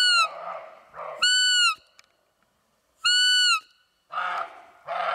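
A roe deer call blown to imitate a doe's high, thin fiep: three clear piping calls about half a second each, each with a slight rise and fall, spaced roughly a second and a half apart. From about four seconds in, a run of short, lower, rougher sounds follows, about two a second.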